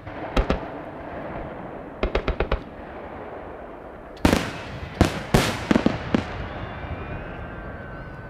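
Aerial firework shells bursting in the sky. There are two sharp bangs near the start, a quick string of about five bangs around two seconds in, and a loud cluster of bangs from about four to six seconds, each trailing off in echoes.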